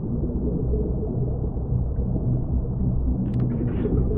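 Deep, steady low rumble of a film's underwater ambience, with a short crackle of clicks a little past three seconds in.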